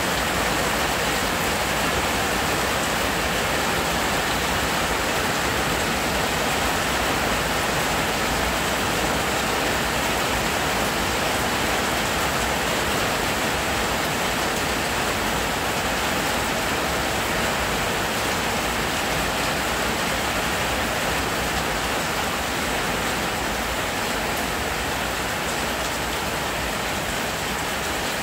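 Heavy rain pouring down in a loud, steady, even hiss.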